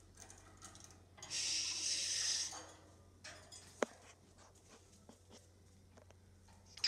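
Cockatiel hissing once, a breathy hiss of about a second and a half, followed a little later by a single sharp click.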